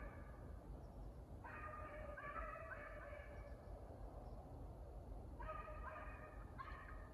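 Beagles baying faintly in the distance, several hounds giving tongue at once in two bursts of a couple of seconds each: the pack running a rabbit.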